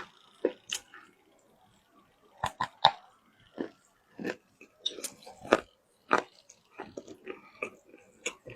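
A person biting and chewing wet loess, close-miked: a string of irregular crisp crunches, several a second, with short gaps between bites.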